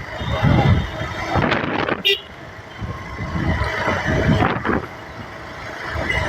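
Road noise while riding a Bajaj Pulsar 150 motorcycle in town traffic: gusty wind on the microphone over the bike and passing vehicles, with a brief high tone about two seconds in.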